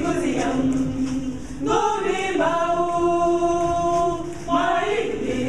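Mixed choir of men and women singing a cappella. About halfway through they hold one long note for around two seconds, then move on.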